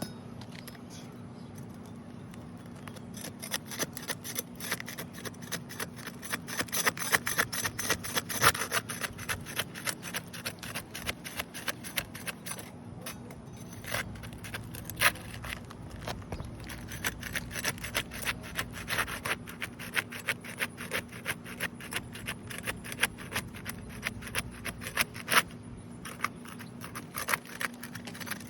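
Thin seal-breaking tool scraping under asphalt roof shingles, rasping in quick, uneven strokes as it breaks the shingles' sealant bond. The scraping picks up about three seconds in and comes in bursts.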